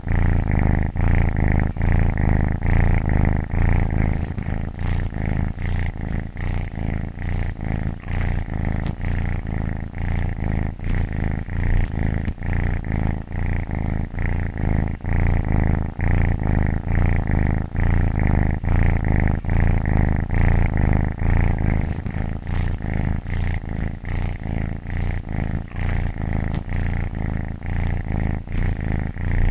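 Domestic cat purring continuously, a low steady rumble that swells and eases in a regular rhythm about once a second with its breathing.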